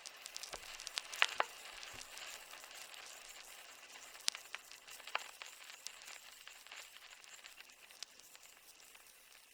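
A crackling sound effect: a steady high hiss dotted with many small sharp pops and a few louder ones, slowly fading.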